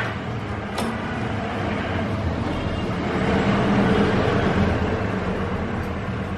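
Steady rumble of vehicle engines and traffic, swelling about three to five seconds in as a vehicle passes. A single sharp click comes about a second in, as the metal driver is worked on the engine cover's screws.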